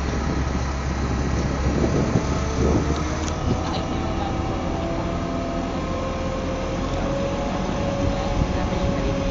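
Crane engine running steadily, with a faint whine that comes in about four seconds in and rises slightly.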